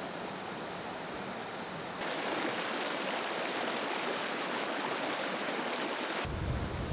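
Mountain stream rushing and splashing over rocks, a steady hiss of flowing water. About two seconds in it turns abruptly louder and brighter as the close-up rapids come in, and near the end this cuts to a lower rumble.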